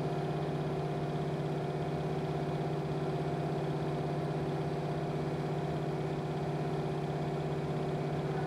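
Electric pasta extruder's mixer motor running with a steady, even hum while it mixes semolina flour and water. The flour is being hydrated into a crumbly, streusel-like mix before extrusion.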